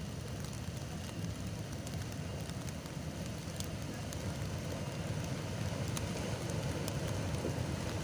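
Steady low rumble of a hot volcanic mudflow (lahar) from Semeru moving down a river valley and steaming, slowly growing louder.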